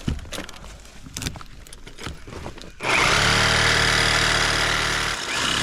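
Scattered knocks and rattles of tool work, then a power tool starts about three seconds in and runs loud and steady for about two seconds, with a brief dip before it runs on again near the end.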